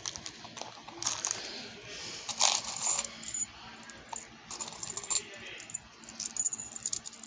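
Small gold-tone metal charms clinking and rattling against each other as fingers stir and pick through them in a plastic compartment box, a run of irregular light clicks with a louder jingle about two and a half seconds in.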